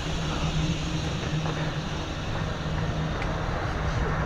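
Steady rumbling background noise with an even low hum, without distinct knocks or events.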